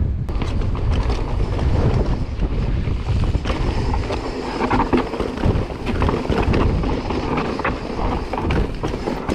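Wind buffeting the microphone of a chest-mounted action camera as a mountain bike rolls fast over a rocky dirt trail, with many short rattles and knocks from the bike and tyres over the rocks.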